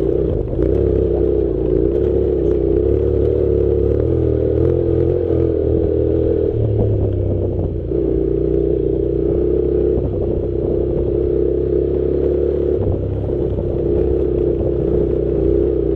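Honda NC700's parallel-twin engine running at low, changing revs as the motorcycle rides a rough dirt track, with light clattering over the ground.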